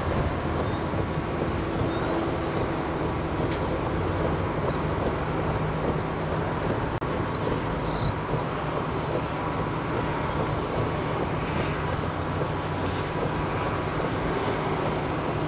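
Steady road and engine noise from a moving car, heard from inside it, with a low hum throughout. A few short, high squeaks come about halfway through.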